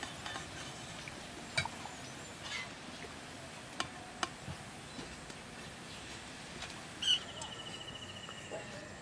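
A metal slotted spoon clinks a few times against the aluminium wok and steel colander as fried onions are lifted out, over a faint steady sizzle of hot mustard oil. About seven seconds in, a high, rapidly pulsing animal trill starts and runs for about two seconds.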